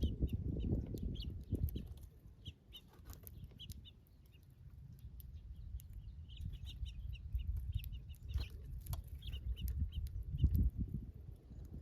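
Small backyard birds chirping in quick, short, high notes, repeated throughout, over a low, uneven rumble that swells near the start and again near the end.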